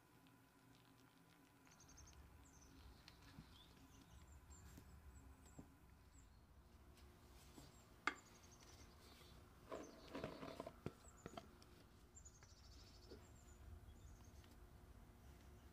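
Faint birds chirping in the background, with a single sharp click about eight seconds in. Around ten seconds in comes a short burst of soft patter and light knocks as flour is poured into a glass mixing bowl.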